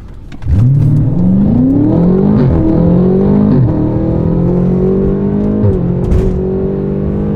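BMW F90 M5's twin-turbo V8, breathing through Eventuri intakes, at full throttle from a standing start without launch control. The engine note climbs through the gears, with quick upshifts dropping the pitch about two and a half, three and a half, and five and a half seconds in.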